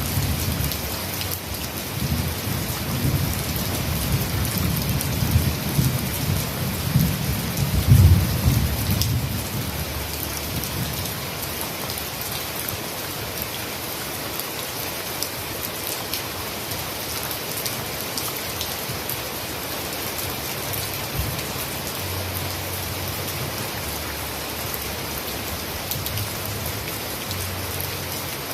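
Heavy rain falling steadily as an even hiss. A low rolling rumble of thunder runs under it for the first ten seconds, loudest about eight seconds in, then dies away.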